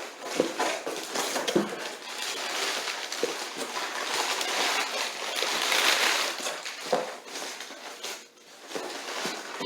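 Packing paper crinkling and rustling as hands dig through a shipping box, with a few light knocks.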